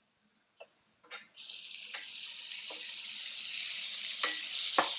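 Artichoke hearts going into a hot pan of spinach and garlic: a steady sizzle starts suddenly about a second in and keeps going, with a few sharp knocks of a utensil against the pan.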